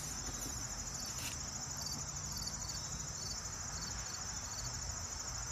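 Insects trilling outdoors: a steady, high-pitched, finely pulsing chorus that goes on without a break.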